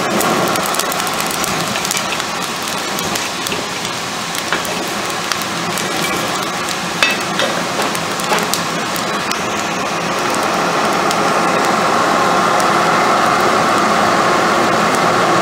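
Whole feed corn burning in a blacksmith's coal forge, crackling and popping as it cokes, over a steady rush of forced air through the fire. The crackles are thickest in the middle, and the steady rush grows louder about ten seconds in.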